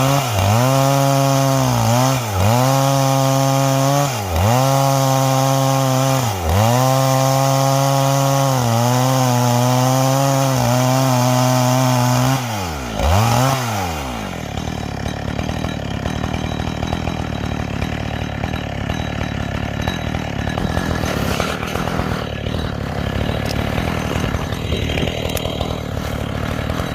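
Two-stroke chainsaw with square chain running at high revs while ripping garapa wood lengthwise along the grain. At first the revs dip briefly and recover about every two seconds, then hold steady. About 13 seconds in the engine note falls away, and a quieter, rougher noise continues.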